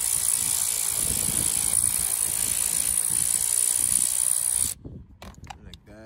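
Cordless battery ratchet running steadily with a high whine as it backs out a T50 Torx seatbelt anchor bolt, stopping shortly before the end.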